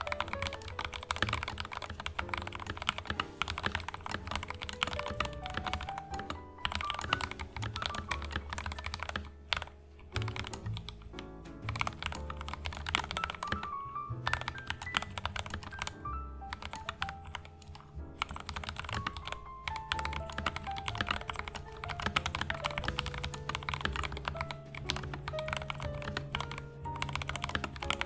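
Continuous typing on a mechanical keyboard fitted with hand-lubed Gateron Yellow linear switches: a steady stream of keystroke clacks. Background music with melodic notes and a bass line plays underneath.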